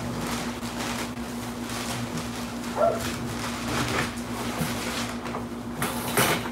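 A dog whining with a brief yelp about three seconds in, over a steady electrical hum, with a few short knocks and rustles near the end.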